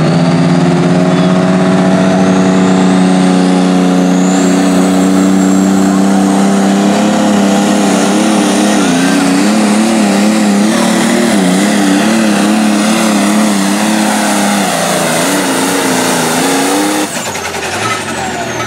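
Light-limited super stock pulling tractor, an AGCO DT200, making a pull at full power: its turbocharged diesel engine runs loud and high with a turbo whistle above, its pitch wobbling up and down through the middle of the run. About seventeen seconds in the engine drops off sharply as the pull ends.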